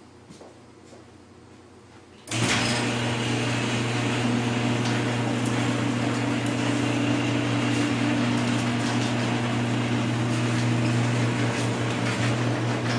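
Electric garage door opener switching on about two seconds in and running steadily, an even motor hum with a rattly noise over it.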